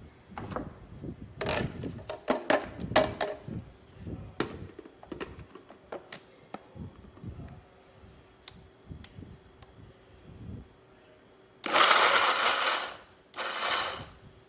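Regular countertop blender run in two short pulses near the end, about a second each, grinding a thick, sticky mix of dates and nuts that were not chopped finely enough for it. Before that, a run of clicks and knocks from handling the blender jar.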